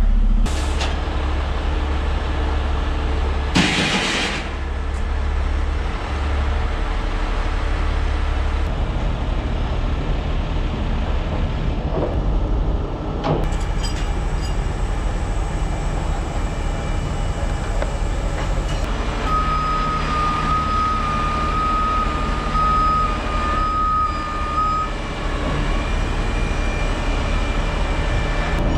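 A heavy rotator tow truck's diesel engine running steadily, with a short loud burst of air hiss about four seconds in. Past the middle comes a run of high beeps lasting several seconds, typical of a truck's warning or backup alarm.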